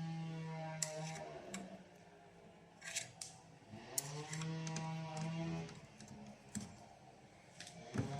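Small clicks and taps of a Torx screwdriver working a screw inside a car door edge. A low humming tone sounds twice for about a second and a half each, near the start and about four seconds in, and returns at the very end.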